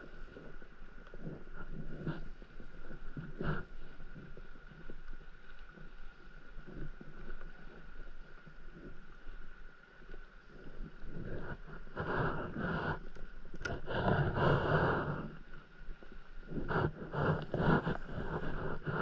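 Water lapping and splashing against a stand-up paddleboard's hull, with wind on the microphone and occasional knocks; louder rushes of water come in the second half.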